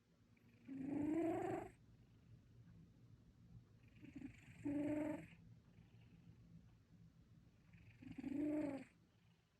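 Cat snoring in its sleep: three loud, drawn-out snores about four seconds apart, each lasting about a second, with a faint low rumble between them.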